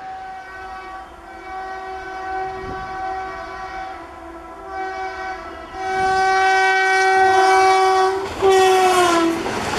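Indian Railways locomotive air horn sounding in several long blasts over the low rumble of a train, the last blast sliding down in pitch near the end.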